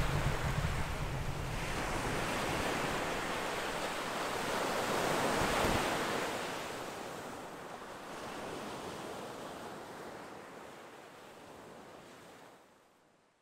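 Sea waves washing on a shore, swelling to one peak about six seconds in, then fading away near the end.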